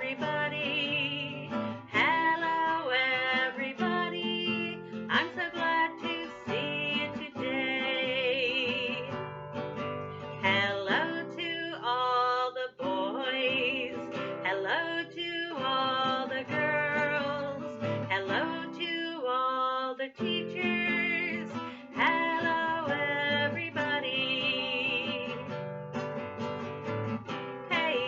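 A woman singing a greeting song to strummed acoustic guitar.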